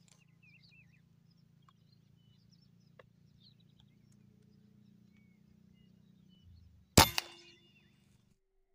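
A single shot from a PCP air rifle about seven seconds in: one sharp crack, then a second, smaller crack a fraction of a second later. A few faint small-bird chirps come near the start.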